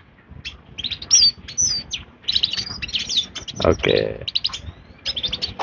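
Caged domestic canaries chirping and twittering in quick short notes, with a few rising and falling whistled glides. A short lower sound stands out a little past halfway.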